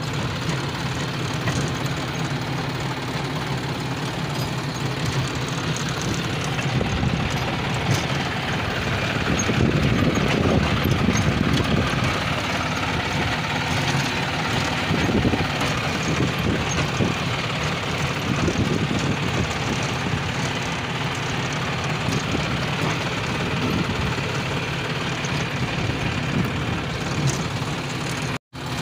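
John Deere 5105 tractor's three-cylinder diesel engine running steadily while pulling a seed drill through the soil, heard close at the rear hitch; it grows a little louder for a few seconds about a third of the way in.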